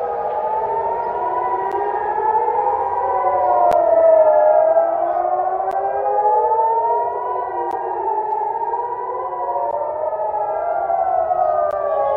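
Several civil-defence air-raid sirens wailing out of step with one another, each slowly rising and falling in pitch: the warning of an incoming missile attack.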